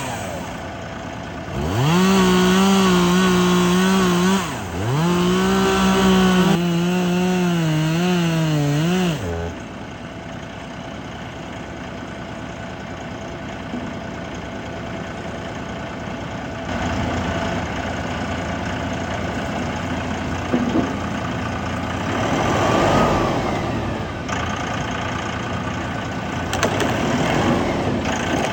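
Stihl two-stroke chainsaw revved to full throttle three times, each time climbing quickly in pitch and then holding, until it drops away about nine seconds in. After that a quieter engine sound runs on, with a couple of smaller rises.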